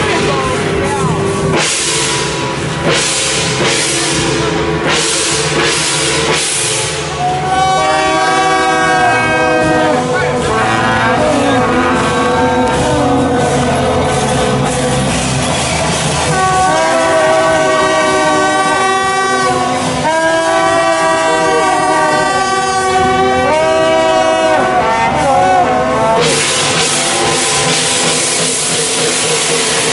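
Loud procession music: a reedy wind instrument holds long notes that step and bend in pitch, over crashing cymbals and drums that fill the start and the end.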